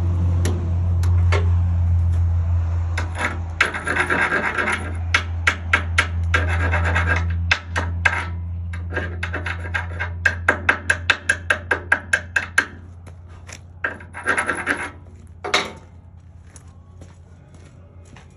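Hand tools scraping and tapping on steel: rasping scrubbing strokes, then quick runs of sharp taps, as when slag is cleaned off a stick weld with a wire brush and chipping hammer. A steady low hum runs underneath and fades toward the end.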